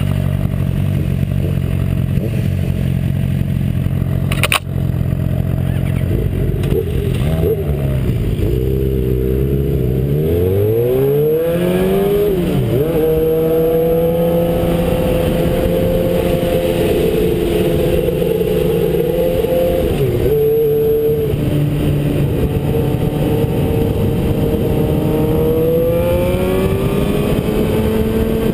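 2011 Suzuki GSX-R600 inline-four engine idling, then revving as the bike pulls away and climbs through the gears, the pitch rising and falling back at each upshift. It then holds steady at cruising speed, dips briefly about twenty seconds in, and rises again near the end. There is a single sharp click about four and a half seconds in.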